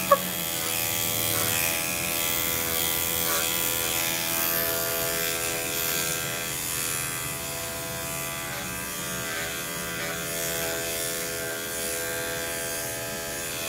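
Electric dog grooming clippers fitted with a #4 guard comb, running with a steady buzz while clipping a dog's curly coat.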